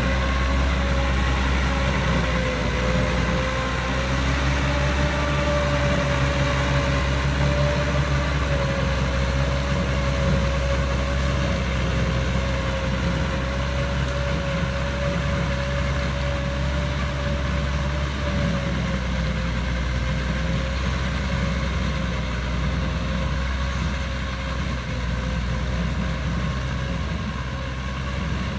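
Massey Ferguson 290 tractor's four-cylinder diesel engine running steadily under load while pulling a rotary tiller through dry soil, with a steady whine over the engine drone. It grows a little fainter near the end as the tractor moves away.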